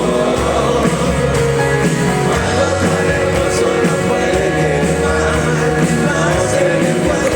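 Live rock band playing through a concert PA, with singing over the music.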